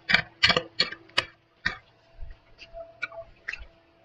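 A hoe striking and chopping into loose earth while digging out a bamboo whip shoot. It makes about five sharp strikes in quick succession in the first two seconds, then lighter knocks and scrapes.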